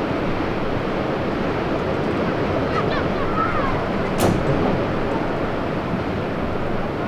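Steady rushing wind noise on the microphone of an outdoor field recording, with faint distant calls and one sharp knock about four seconds in.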